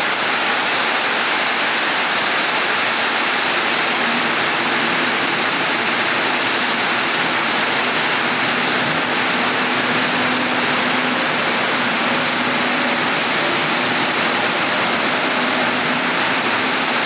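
Seoul Metro 4000-series electric train (VVVF-GTO inverter) running, a loud steady rush of wheel and running noise with a faint inverter whine slowly rising in pitch.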